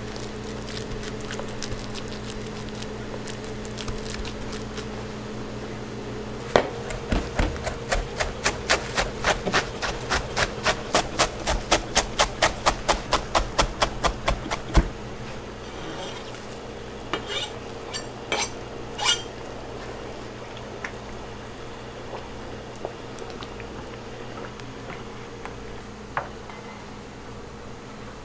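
Large chef's knife chopping fresh basil leaves on a plastic cutting board: a fast, even run of knocks, about four a second, starting about six seconds in and stopping about eight seconds later, followed by a few scattered knocks. A steady hum of a kitchen fan runs underneath.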